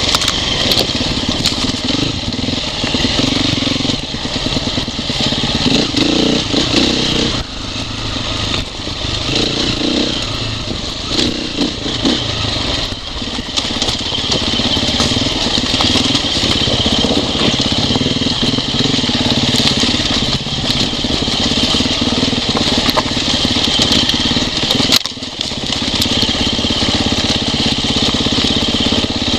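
Dirt bike engine running with its revs rising and falling, while stones crunch and clatter under the tyres on a rocky trail. The engine briefly drops off near the end, then picks up again.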